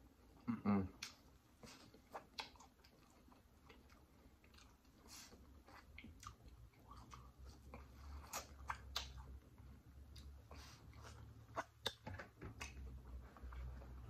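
Close-miked eating: chewing with wet mouth smacks and many short clicks, and a brief hummed sound from the eater about half a second in.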